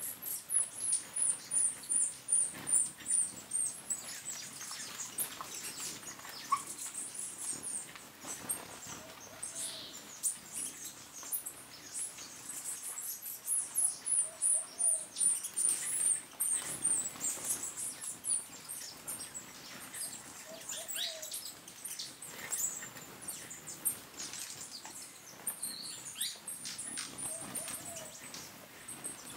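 Hummingbirds twittering: runs of rapid, very high squeaky notes falling in pitch, loudest near the start and again about halfway through, with scattered thin high calls between them.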